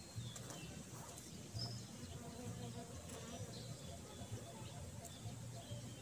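Quiet garden ambience: a flying insect buzzing low, coming and going close by, with faint scattered bird chirps.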